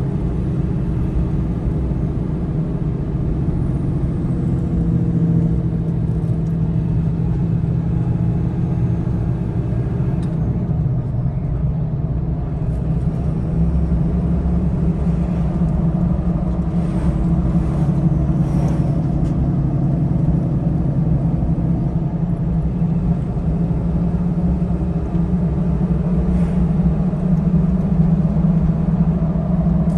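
A pickup truck's engine running and its tyres on the road, heard as a steady drone from inside the cab while driving at a steady speed.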